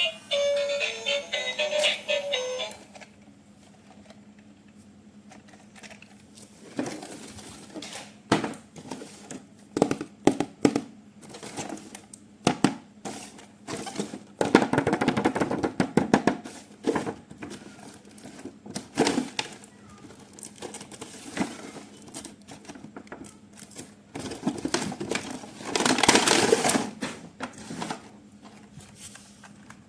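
A short electronic melody that cuts off about three seconds in, then scattered clicks, knocks and rustling from plastic remote-control toys and their packaging being handled, with louder stretches of handling around the middle and near the end. A faint steady hum runs underneath.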